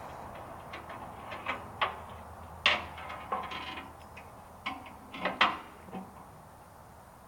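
A series of irregular sharp knocks and clanks, the loudest about two and a half and five and a half seconds in, over a faint low hum.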